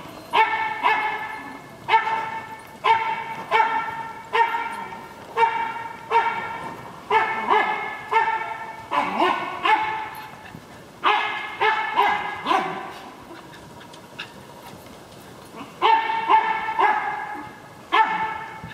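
A dog barking over and over in short, high-pitched barks, about one a second, breaking off for a couple of seconds about two-thirds of the way through and then starting again.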